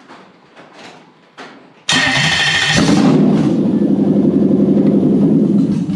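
A Toyota UZ-series V8 on an engine stand is started: the starter cranks and the engine catches within about a second, running loud and steady before stopping near the end.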